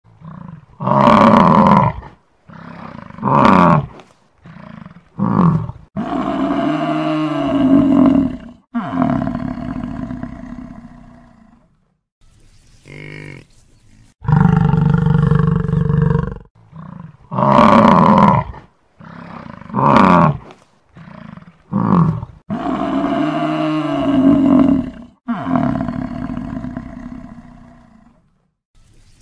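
Buffalo calling: a series of loud calls with short gaps between them, some brief and some held for two or three seconds.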